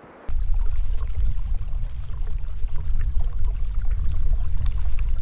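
Wind buffeting the microphone: a loud, steady deep rumble that cuts in abruptly just after the start, with faint scattered clicks over it.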